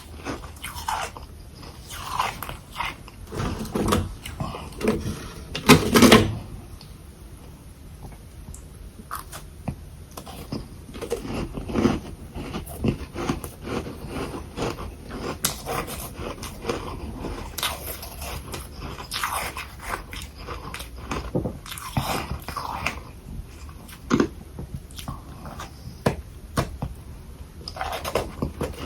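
Close-miked biting and chewing of packed humidifier freezer frost balls: irregular crunches as each big bite is broken down, with the loudest burst of crunching about six seconds in and a quieter stretch of chewing just after.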